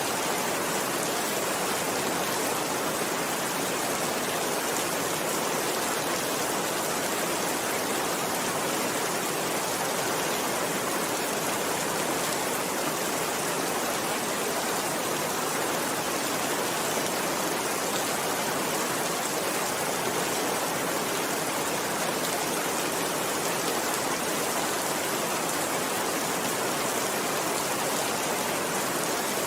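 Steady rain falling: an even, unbroken hiss with no single drops, thunder or other events standing out.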